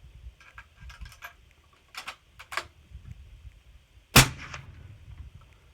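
One suppressed shot from a .308 rifle fitted with a Thunder Beast Ultra 7 suppressor, about four seconds in, preceded by a few quieter clicks. The shot reads about 136.5 dB on the sound level meter.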